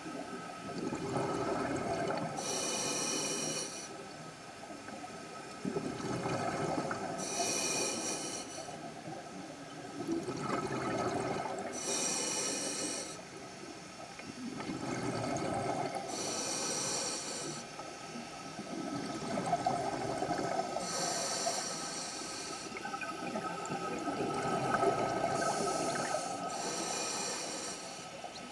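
Scuba diver breathing through a regulator, heard underwater: a short hiss of inhaled air roughly every four to five seconds, alternating with longer, lower bubbling rumbles of exhaled air.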